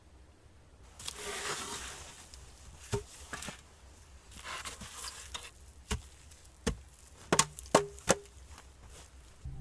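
Scraping and rustling, then a run of sharp knocks, six or so, irregularly spaced and bunched near the end, a few with a brief ring.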